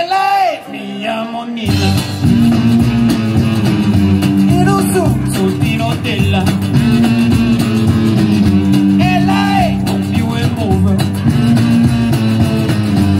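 Live rock band playing, with drums, electric and acoustic guitars and a man singing into a microphone. The full band comes in loud about two seconds in after a thinner opening.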